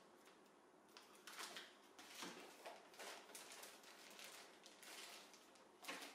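Faint rustling of plastic wrapping and soft knocks as small bagged accessories are handled and set down on a table, with a sharper rustle near the end.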